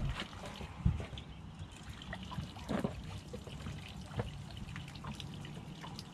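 Water trickling and lapping close by, with a few soft splashes.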